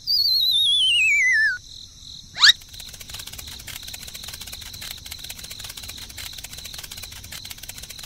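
Cartoon sound effects: a wavering whistle sliding down in pitch for about a second and a half, a quick rising swish, then steady cricket chirping.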